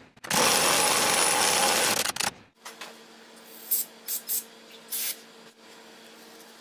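A power tool runs for about two seconds, driving the pitman arm puller on the steering box. It is followed by a few light metallic clinks of tools over a faint steady hum.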